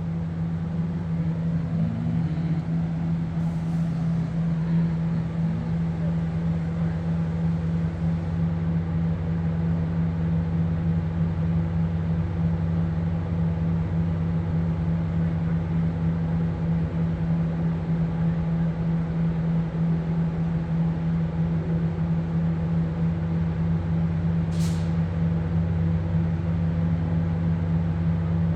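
NJ Transit ALP-45DP dual-mode locomotive's diesel engines running steadily, a low even hum that holds unchanged. A short hiss of air cuts in once, about 24 seconds in.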